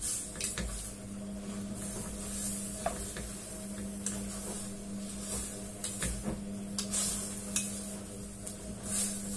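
A spatula stirring cabbage and vegetables in a stainless steel saucepan, with scraping, scattered clicks against the pot and a soft sizzle. A steady low hum runs underneath.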